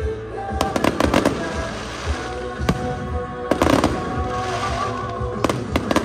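Fireworks going off over music, in three clusters of rapid pops and bangs: about a second in, around the middle, and near the end.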